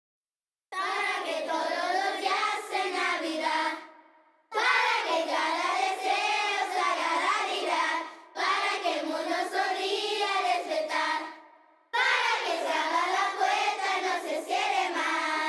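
Children's school choir singing without accompaniment, in four phrases with short breaks between them.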